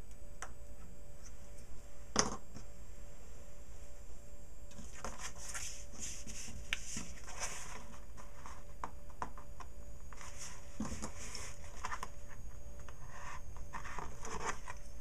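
Cardstock being cut with a small hand tool: an irregular run of short scratching strokes from about five seconds in, mixed with paper sliding and rustling as the page is moved. A single sharp click about two seconds in.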